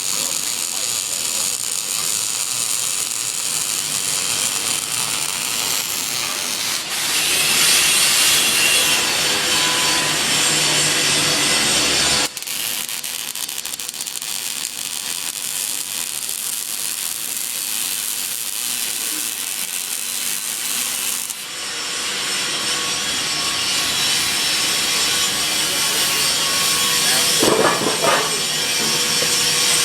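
Electric welding arc crackling and hissing steadily as a weld bead is run, with abrupt shifts in level and tone about 7, 12 and 21 seconds in.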